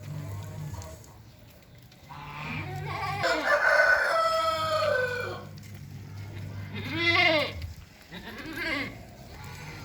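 Rooster crowing: one long call that falls in pitch at its end, followed by two shorter rising-and-falling calls, over a low steady hum.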